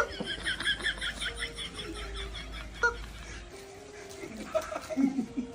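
High-pitched giggling laughter in a quick run of repeated syllables, then quieter, with a single sharp knock about three seconds in.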